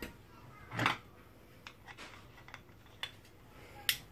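Screwdriver working the screws out of an electric motor's metal housing: small metal clicks and scrapes, with one louder knock about a second in and a sharp click near the end.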